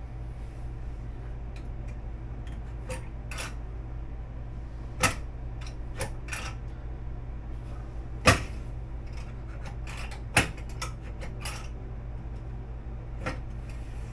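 Scattered clicks and knocks of hardware being handled, with three louder knocks spread across the middle, over a steady low hum.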